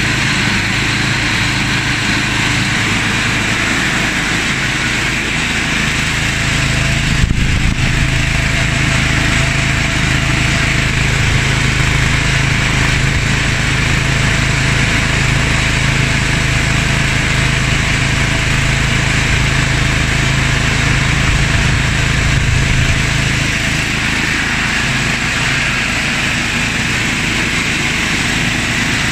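17.5 hp engine of a homemade snowblower running steadily. A short knock comes about seven seconds in, and the engine note grows stronger there, then settles back about twenty-three seconds in.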